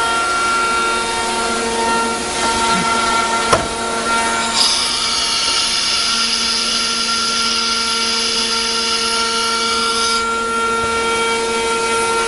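CNC router's electric spindle running with a steady whine as it routes wood. A harsher cutting noise joins in from about four and a half seconds to ten seconds, with a single sharp click shortly before.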